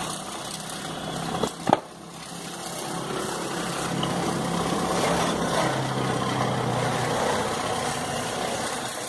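An engine idling steadily, with a single sharp clink about 1.7 seconds in.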